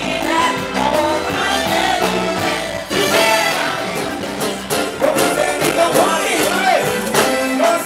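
Live Latin dance band playing, with conga drums and a lead singer singing into a microphone.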